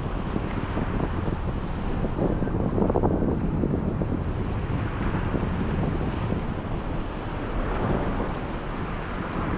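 Strong gusty wind buffeting the microphone, with surf washing on the rocks of the shore underneath.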